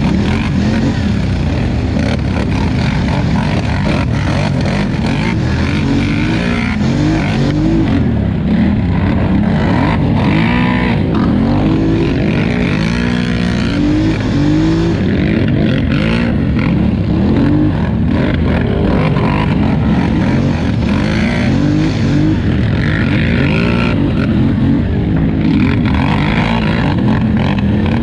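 2018 Polaris Scrambler 1000XP ATV's twin-cylinder engine at race throttle, its pitch rising and falling again and again, every second or two, as the throttle is worked on and off.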